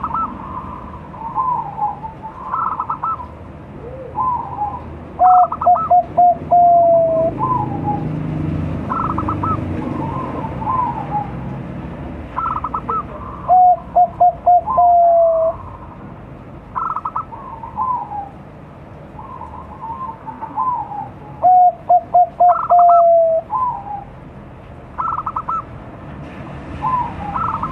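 Young zebra dove (Bangkok perkutut) cooing its song three times, about every eight seconds: each phrase is a quick run of short staccato coos ending in a longer drawn-out note. In between, fainter, higher-pitched cooing phrases from other doves answer it.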